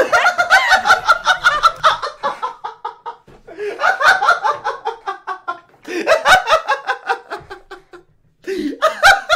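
Hearty laughter in several long bouts, with a brief lull about two to three seconds in and a short break near the end.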